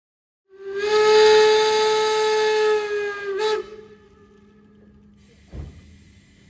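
Steam whistle of the Reichsbahn Reko class 52 locomotive 52 8177-9, one long blast of about three seconds that dips in pitch as it cuts off. A faint steady hiss follows, with a low thump near the end.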